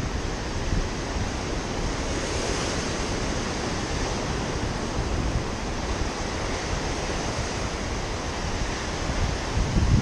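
Ocean surf breaking and washing up the beach in a steady rush, with wind buffeting the microphone as a low rumble that grows near the end.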